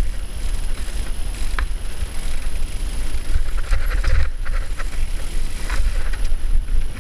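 Mountain bike descending a rocky forest singletrack: constant wind rumble on the microphone with tyres running over dirt and stones, and the bike rattling and knocking sharply over rocks and roots, in a bunch of hits about halfway through.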